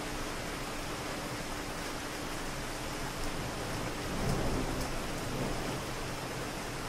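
Steady city rain pattering on hard surfaces, with a few individual drops ticking. A low rumble of distant thunder swells about four seconds in and fades again.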